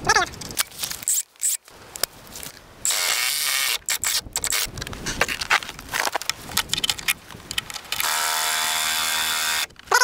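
Cordless drill/driver running in short bursts, driving screws through the upright into the log wall. A brief run about three seconds in and a longer one near the end, with clicks and knocks between.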